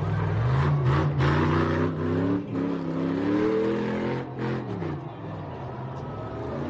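Pickup truck engine revving hard as the truck slides through loose dirt. The pitch climbs over the first couple of seconds and stays high, then drops about four and a half seconds in and settles to a steadier note.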